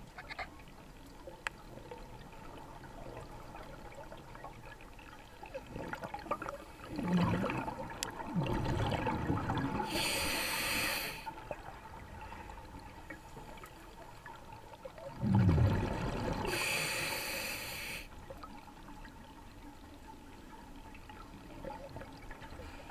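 Scuba diver breathing through a regulator underwater: two breaths about eight seconds apart, each a rumble of exhaled bubbles and a hiss through the regulator.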